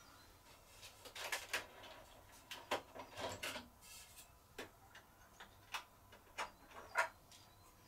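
Irregular light clicks and taps, about eight of them, from a five-foot T8 tube being twisted and handled in the end holders of a ceiling batten light fitting.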